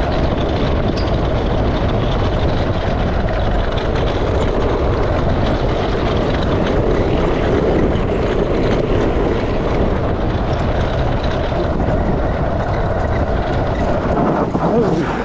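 Off-road gravity kart rolling fast downhill on a loose gravel and slate track: a steady, loud rumble and rattle of its big knobbly tyres on the stones and the frame shaking over them.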